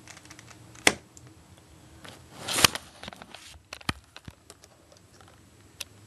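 A few sharp, separate clicks and a short rustle of handling, as a plastic puzzle cube and the recording setup are handled before a timed solve.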